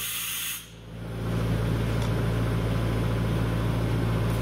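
Perkins diesel engine of a tow-behind rotary screw air compressor running steadily, a low even hum. Near the start there is a short hiss and a brief dip in level before the steady running carries on.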